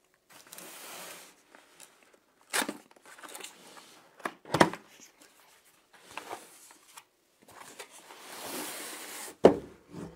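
Packaging being opened and handled: rustling and scraping, broken by three sharp knocks, the last near the end the loudest.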